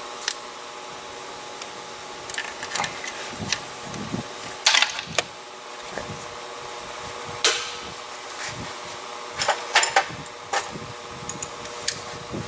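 Irregular clicks and metallic clinks of hand tools being handled, a few sharper knocks among them, over a steady mechanical hum.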